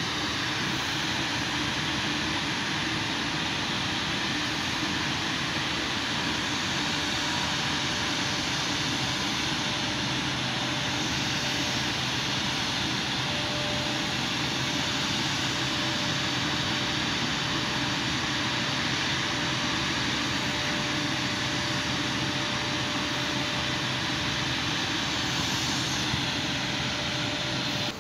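Steady rushing noise with a faint steady hum, unchanging throughout, starting and stopping abruptly.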